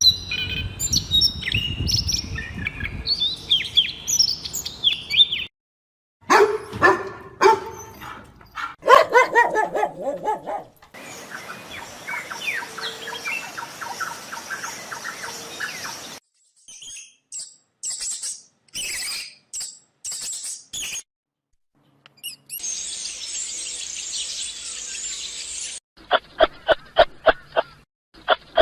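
A string of separate animal-call clips cut one after another with short silences between them, bird chirping and calls the most prominent. Near the end comes a run of evenly spaced sharp calls, about three a second.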